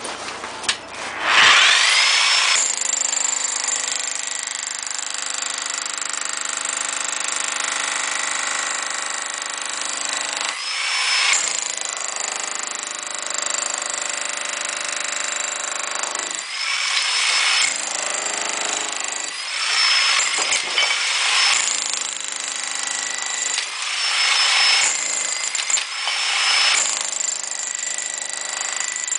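Bosch GSH 11 VC Professional demolition hammer (23-joule class) with a pointed chisel, hammering horizontally into rendered brick wall. It starts about a second and a half in with a rising whine as the motor spins up, then runs steadily, with several short breaks and restarts in the second half.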